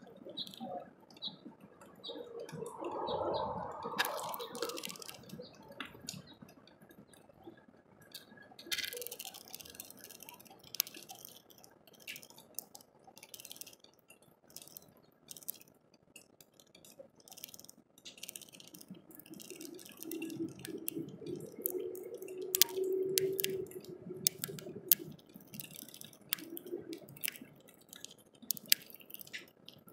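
Raindrops dripping and ticking irregularly on a clear plastic bird feeder. A duller, lower sound swells and fades twice, a few seconds in and again in the second half.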